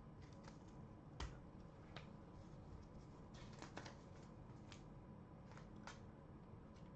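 Faint, scattered clicks and light rustles of trading cards and plastic being handled as cards are slid into toploaders, with the sharpest click about a second in.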